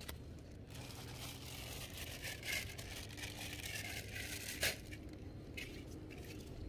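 Rustling and crinkling handling noise with a few sharp clicks, the loudest about four and a half seconds in, over a low steady rumble.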